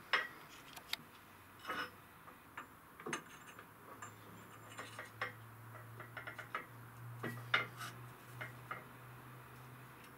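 Irregular metallic clicks and clinks as a steel control arm and pressing adapter are set and held under the ram of a hydraulic shop press, ready for pumping. A low steady hum starts about four seconds in.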